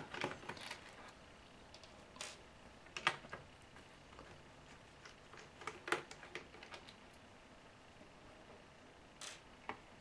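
A handful of faint, scattered clicks and light taps: small laptop screws and a precision screwdriver handled against the laptop's plastic base, with small screws set down on a table.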